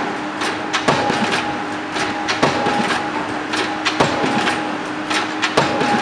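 A piling rig's hammer driving a precast concrete pile: four heavy blows, about one every second and a half, with lighter clicks between them. A steady machine hum from the rig runs underneath.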